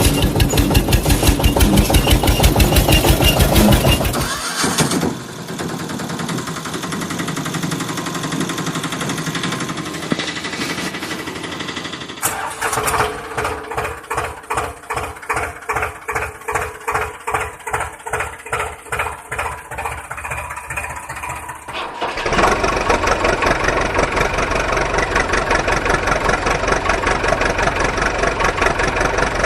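Engine sounds of construction machines, several in turn: a fast, dense chugging, then a smoother, quieter running, then a slower pulsing chug of about two to three beats a second, and after about twenty-two seconds a busy, steady running again.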